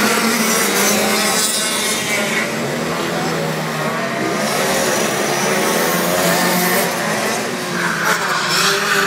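A TM KZ10 125cc two-stroke shifter kart engine running hard on track, its pitch rising and falling repeatedly as it accelerates through the gears and backs off.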